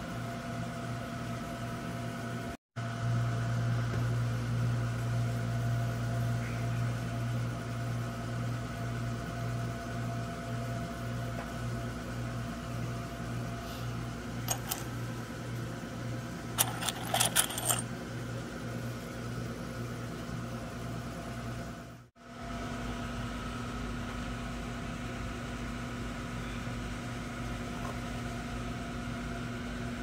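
Steady mechanical hum that cuts out briefly twice. About halfway through comes a short run of light clicks: stone arrowheads clinking together as they are handled.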